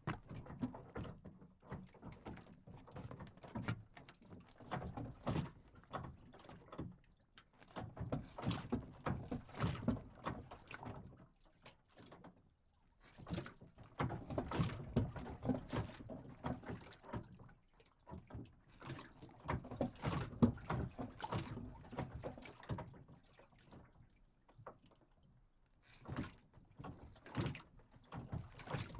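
A dock shifting as it moves on the water: irregular knocks and thuds that come in clusters lasting a few seconds, with quieter gaps between them.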